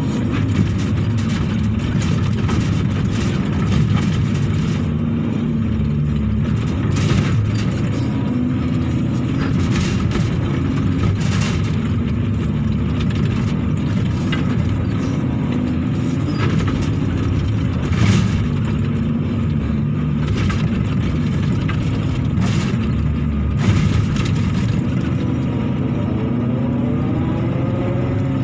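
Hydraulic excavator's diesel engine running under load while the boom and bucket dig, heard from inside the cab, with several short knocks as the bucket works the soil. Near the end the pitch glides up and down as the full bucket is lifted.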